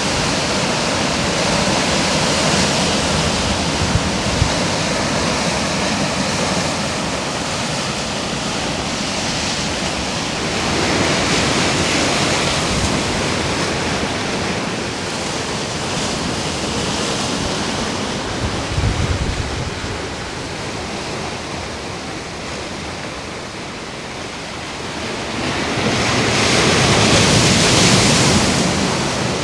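Ocean surf breaking and washing in, a steady rush of white water that swells with each set and is loudest when a bigger wave breaks near the end.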